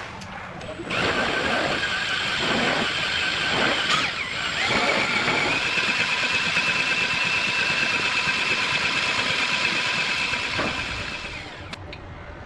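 Small power-tool motor starting up, its whine rising in pitch about four seconds in and then running at a steady high pitch, before winding down near the end.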